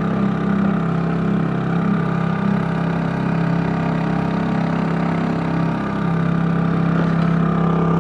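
Engine running at a steady speed, dipping slightly in level and pitch about six seconds in.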